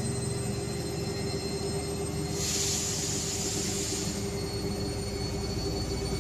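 IFB washing machine running, a steady motor hum with a high whine. A hiss rises for about two seconds midway.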